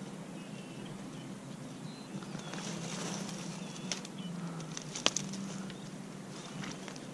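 Outdoor lakeside ambience: a few faint bird chirps over a low steady hum, a stretch of rustling partway through, and sharp clicks near four and five seconds in, the one just after five seconds being the loudest sound.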